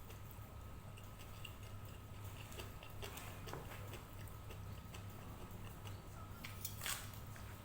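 Faint scattered clicks and ticks over a steady low hum, with a short brighter cluster of clicks near the end.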